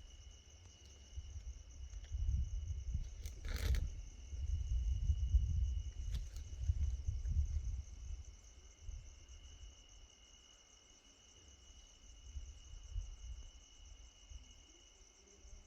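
Low rumble of distant thunder that swells a couple of seconds in and fades away after several seconds, with a steady high chirring of insects such as crickets throughout. A couple of sharp clicks come a few seconds in.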